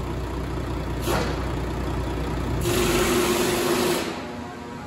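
2002 Volvo VED12 inline-six diesel engine idling with a steady low rumble, with a brief hiss about a second in. About two and a half seconds in, the low rumble drops away and a louder hiss with a steady tone takes over for more than a second.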